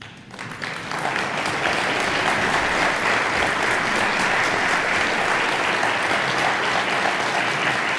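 Audience applauding, breaking out suddenly after a hush and swelling within about a second into steady, full applause.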